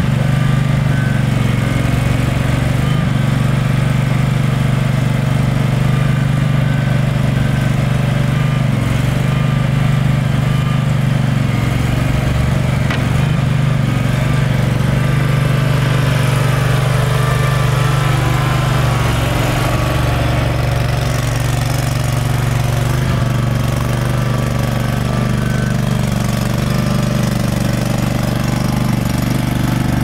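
Small engine of a stand-on mini skid steer running steadily while the machine drives and turns on its rubber tracks.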